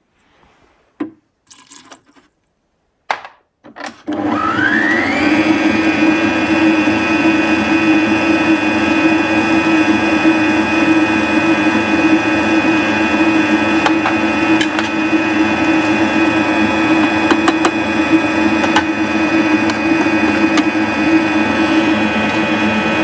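After a few brief faint knocks, an electric kitchen mixer switches on about four seconds in, its whine rising as it speeds up, then runs steadily, beating cupcake batter of margarine, sugar, eggs and flour as the milk, vanilla and baking powder are mixed in.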